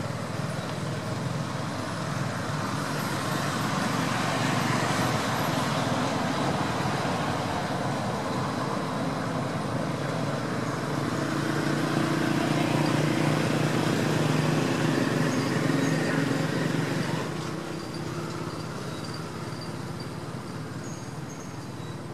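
Steady road-traffic noise with a low engine hum, swelling for a while and easing off after about seventeen seconds.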